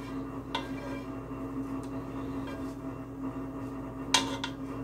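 A spatula scraping cooked pasta out of a metal pot into a ceramic baking dish: soft scrapes, with a faint knock about half a second in and a sharp knock about four seconds in. A steady low hum runs underneath.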